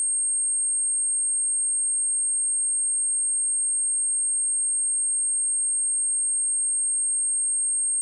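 A steady, pure 8526 Hz sine-wave test tone, a single high-pitched whistle held at constant level.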